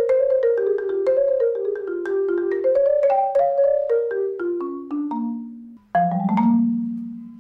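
Tuned mallet percussion, marimba-like, playing quick struck notes, about four a second, in mostly falling runs. After a brief break near the end, a final low note is struck and rings out, fading away.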